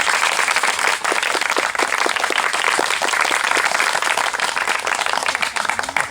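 A group doing the 'machine-gun clap': hand claps following one another in a fast, unbroken stream.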